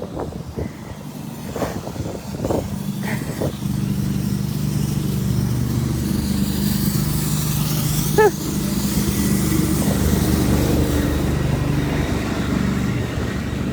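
A motor vehicle's engine running steadily close by, a low, even hum that builds over the first few seconds. A short pitched squeak comes about eight seconds in.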